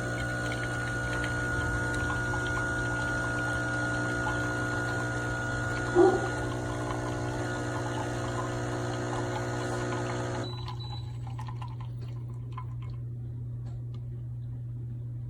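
Espresso machine pump running steadily as coffee pours, with one brief loud knock about six seconds in. The fuller pump sound cuts off about ten seconds in, leaving a lower steady hum.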